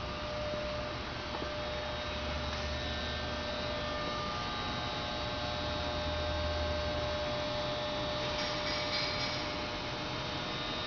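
Hydraulic press brake's electric pump motor running steadily: an even hum with a few thin high whines, and a low rumble that swells twice.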